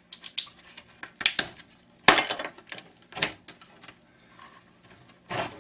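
Parts of a flat-screen monitor clicking and clattering as it is taken apart by hand: a run of irregular sharp knocks and clinks, the loudest about two seconds in.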